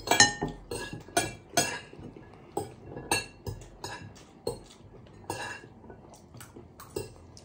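Metal cutlery clinking and scraping against ceramic dinner plates during a meal: about ten sharp, ringing clinks at irregular intervals, the loudest in the first two seconds.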